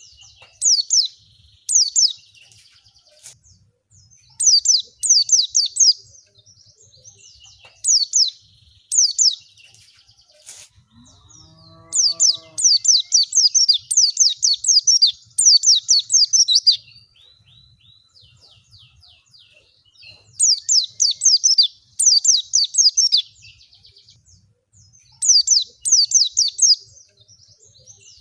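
White-eye (pleci) song: repeated phrases of rapid, high-pitched twittering notes, each note sliding downward, broken by short pauses.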